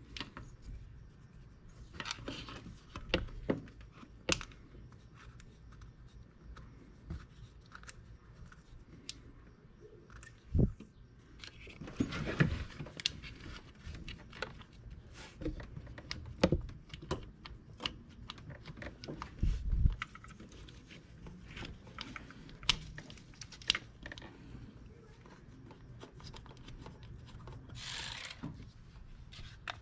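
Irregular clicks, light metal knocks and rustling from hand work on an engine: tools and parts being handled and fitted, with a few sharper knocks about ten to thirteen seconds in and a dull thump near twenty seconds.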